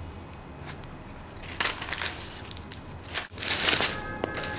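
Thin plastic crinkling and rustling as a black plastic carrier bag and cellophane packaging are handled. It comes in a few bursts, the loudest a little over three seconds in.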